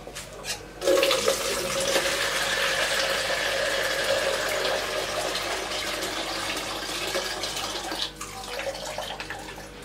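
Water running from a wall tap into a plastic bowl in a sink, turned on about a second in and shut off about eight seconds in, followed by a few light knocks.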